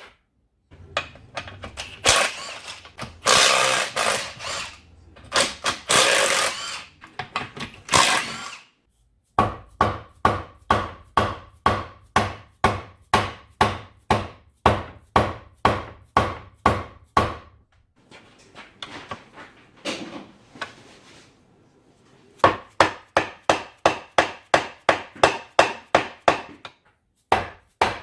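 Hammer blows on an NP208 transfer case, working the case halves apart. Irregular scraping and knocks come first, then a long run of steady strikes about two a second with a metallic ring, and after a short lull faster strikes about three a second.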